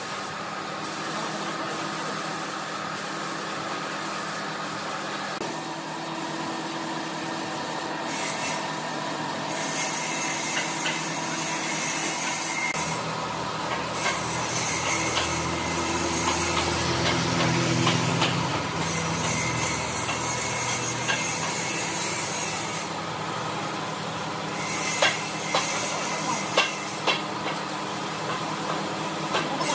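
Pneumatic spray gun hissing in repeated bursts as finish is sprayed onto wood. A deeper hum joins for several seconds in the middle, and a few sharp clicks come near the end.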